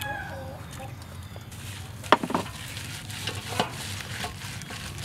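Hands rubbing seasoning into raw whole chickens in a stainless steel bowl: wet squelching and rustling of the meat and lemongrass, starting about a second and a half in, with a couple of sharp clicks.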